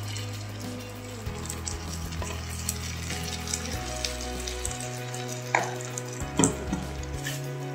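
Vegetables sizzling in a hot frying pan while béchamel sauce is scraped in from a steel bowl and stirred with a spatula, with a couple of sharp clinks of utensil on metal a little past halfway. A low hum under it shifts in pitch every second or so.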